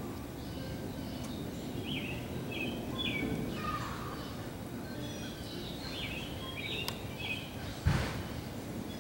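Small birds chirping in short, quick phrases, in two spells, over steady low outdoor background noise, with a single sudden thump near the end.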